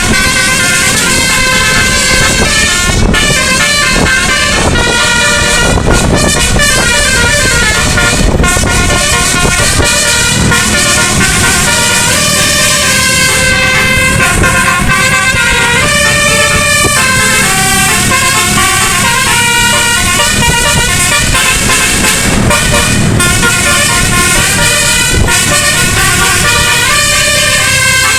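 Bus telolet: a nine-trumpet musical air horn playing a continuous run of tunes, each note held briefly before stepping quickly to the next pitch. A steady low rumble runs underneath.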